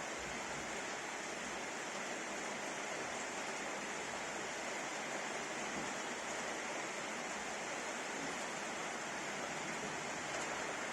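Rain shower falling steadily, an even hiss with no change in level.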